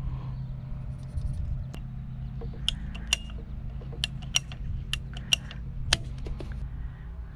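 Ratcheting PVC pipe cutter being worked through 3/4-inch PVC pipe: a run of about ten sharp clicks over a few seconds, the loudest near the end as the blade cuts through. A steady low hum runs underneath.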